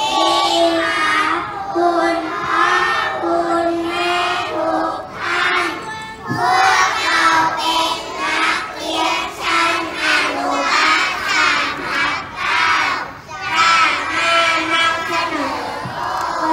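A group of young children singing a song together in unison, in phrases with long held notes.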